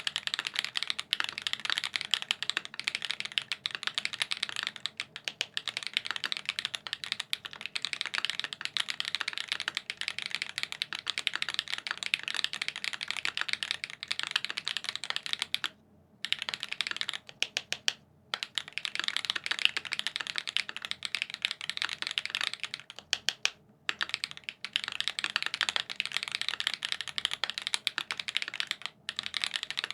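Fast, steady typing on a custom TKL mechanical keyboard with lubed SWK X OUTVA Black tactile switches on a PVC plate and GMK keycaps: a dense run of keystroke clicks, broken by a few brief pauses.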